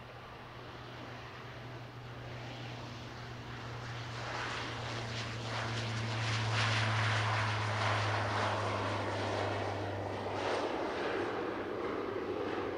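A fixed-wing airplane's engines passing, growing louder to a peak about halfway through, then easing a little near the end. A steady low hum runs under the rushing engine noise.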